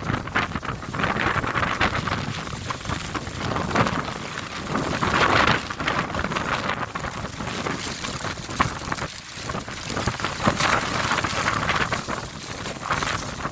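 Storm wind buffeting the microphone, a rough rushing noise that swells and eases in gusts.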